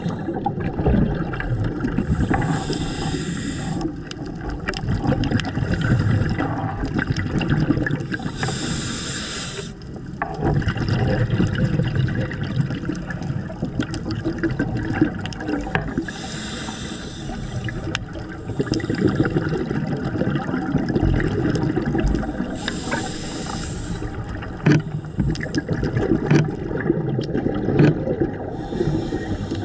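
Underwater sound through an action camera on a scuba dive: a steady low rumble with scattered crackling clicks, and a rush of the diver's exhaled regulator bubbles four times, about every six or seven seconds.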